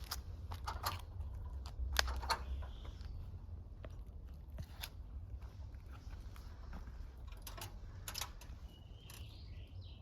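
Scattered sharp clicks and crunching rustles over a low steady rumble, with faint bird chirps near the end.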